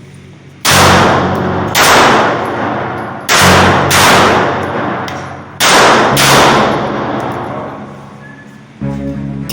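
Pistol fired in three quick pairs, six shots in all, each shot ringing off for about a second in an enclosed space. A weaker bang comes near the end, and background music plays underneath.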